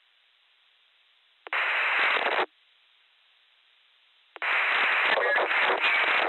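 Amateur radio repeater receiver audio: faint hiss, then about one and a half seconds in a one-second burst of loud static as a transmission keys in. A little over four seconds in, a second noisy transmission opens with a distorted voice in the static.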